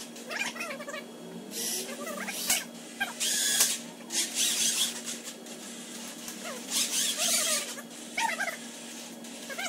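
Workshop sound played back four times too fast: high, squeaky chipmunk-like voices chattering, with several short bursts of hiss and a steady hum underneath.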